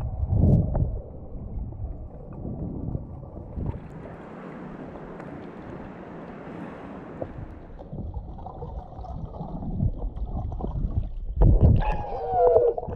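Sea water heard through a snorkeller's action camera: muffled underwater churning and knocks at first, a steady hiss of wind and waves for a few seconds once the camera is at the surface, then louder sloshing and splashing near the end with a brief falling tone.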